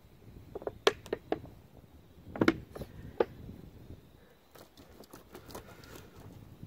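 Hands handling a wet beaver hide in a plastic tub of soapy water and a plastic dish-soap bottle: scattered sharp taps and small splashes, the loudest about two and a half seconds in, then fainter ticks.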